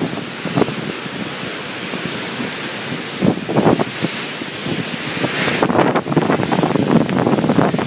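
Ocean waves washing against the shore, with gusts of wind buffeting the microphone; a louder, hissing rush of water swells about two-thirds of the way through.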